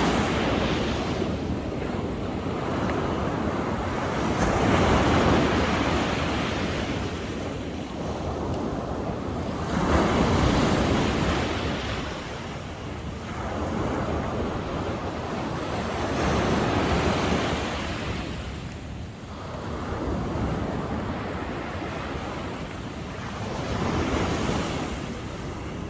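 Sea waves breaking and washing on the shore, the surf swelling and falling back about five times, every five or six seconds.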